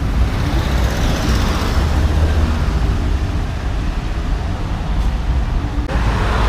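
Road traffic on a multi-lane avenue: a vehicle passes about one to two seconds in, and another comes up near the end, over a constant low rumble.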